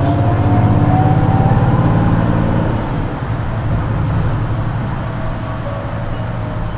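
Isuzu Erga Hybrid city bus's diesel-hybrid drivetrain heard from inside the cabin, the engine running hard under acceleration with a slowly rising whine over it, then easing off about three seconds in.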